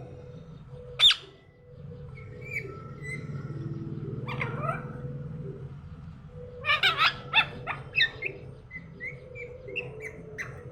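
Pet parrot calling: one sharp, loud screech about a second in, scattered short chirps, then a quick run of loud squawks around seven seconds in, over a low steady hum.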